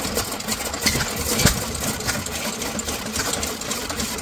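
Vintage Galloway stationary engine running, belt-driving a pumpkin shredder that clatters fast as it chops pumpkin, with a couple of sharper knocks about one and one and a half seconds in.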